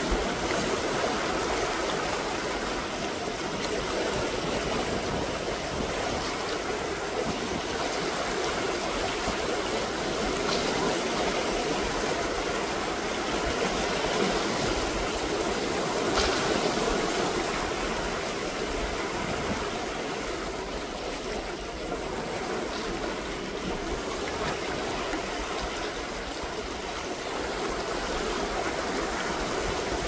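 Small sea waves washing over and around shoreline boulders: a steady rush of churning, foaming water that swells and eases slightly.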